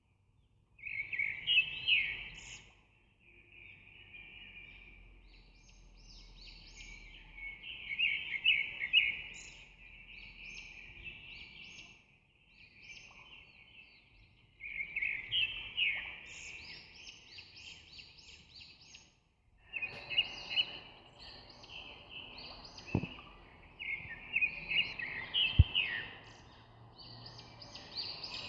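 Birds chirping in dense, busy stretches that stop and start abruptly several times, with two sharp clicks in the second half.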